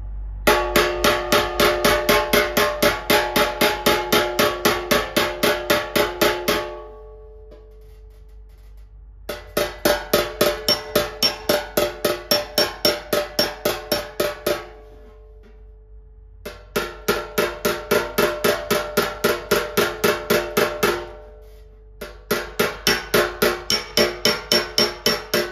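A body-shop slapper tapping a steel classic Mini wing over a dolly in four runs of quick, even taps, about five a second, each run leaving a short metallic ring. The taps are aimed precisely at low spots to bring them up.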